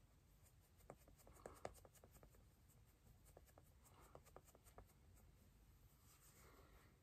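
Near silence with faint soft taps and rustling of a makeup sponge dabbing foundation onto the face, in two short flurries.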